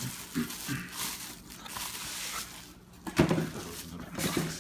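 Cardboard boxes and bubble wrap rustling and crinkling as a packed item is pulled out of its box, with a sharp knock a little past three seconds in.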